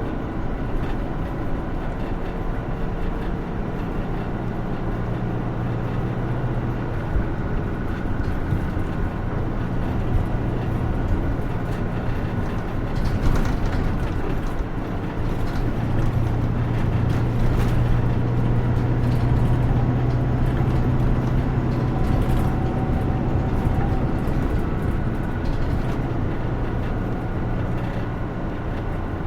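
Running sound of a Hino Rainbow II (SKG-KR290J1) route bus: its diesel engine drones steadily with road noise and a few light rattles, the engine hum growing louder about halfway through as it pulls under load.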